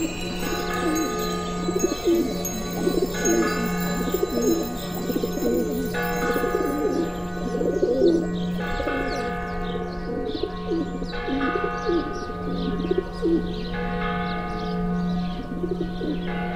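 A church bell tolling slowly, about one stroke every two and a half to three seconds, each stroke ringing on with several tones over a steady low hum. Birds call throughout, with short high chirps in the second half.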